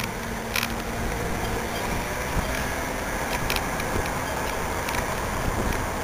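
Steady street traffic noise and wind rumbling on a bicycle-mounted camera's microphone while riding, with a few light clicks.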